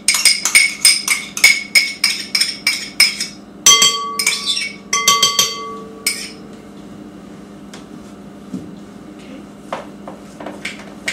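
A spoon knocking rapidly against a mixing bowl, about four knocks a second, to shake spoonfuls of vanilla yogurt into it. After about three and a half seconds come a few clinks that ring on briefly, then only faint scattered taps.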